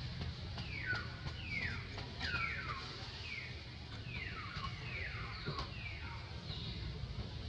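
A bird calling a run of repeated falling notes, each sliding from high to lower pitch, a little under one a second, over a steady low outdoor rumble.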